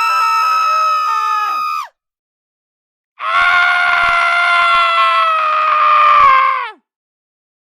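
Two recorded human screams, high-pitched and held. The first trails off and falls in pitch about two seconds in; after a short silence, a second scream starts about three seconds in, lasts about three and a half seconds and drops in pitch as it ends.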